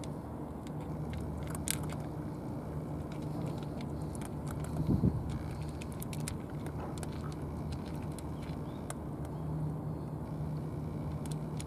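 Cats eating from plastic trays, with scattered small crunches as they chew dry kibble. Underneath runs a steady low mechanical hum, and there is one louder thump about five seconds in.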